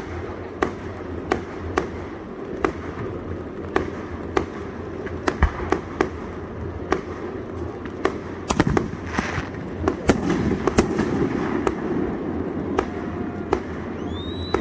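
Aerial fireworks going off: a steady run of sharp bangs, roughly one every three quarters of a second, with a denser crackling stretch in the middle and a rising whistle near the end.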